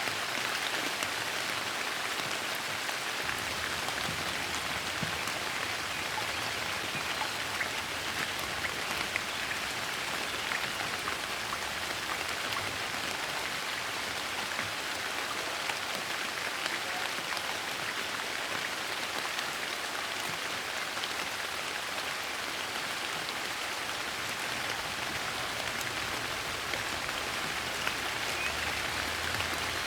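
Steady rain falling: an even, continuous hiss of many small drops with a fine patter throughout.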